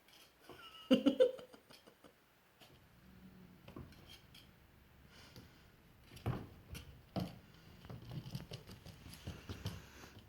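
A dog and a cat scuffling: scattered light clicks and knocks, with one loud knock about a second in and more near six and seven seconds.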